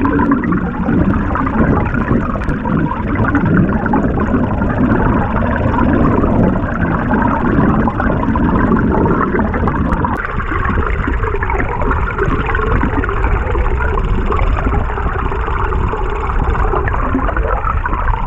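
Bladed jigs being retrieved underwater, their vibrating blades and the water heard through an underwater microphone as a steady, dense noise, with one sharp tick about ten seconds in.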